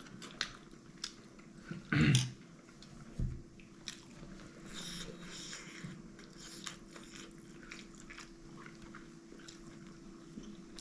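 Close-up eating sounds: chewing and biting with scattered short crisp clicks and crunches, a loud brief burst about two seconds in and a thump soon after, over a faint steady hum.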